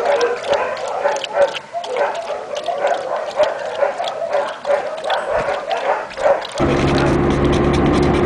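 Dog lapping water from a bowl, a quick even rhythm of laps, about four a second. Near the end it cuts suddenly to the steady drone of a car's engine and road noise from inside the cabin.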